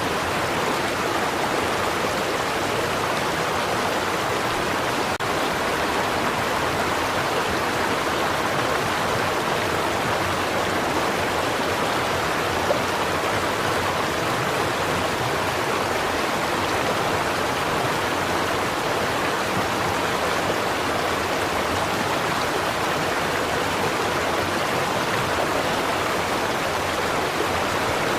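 A stream running steadily over rocks, an even, continuous rush of flowing water.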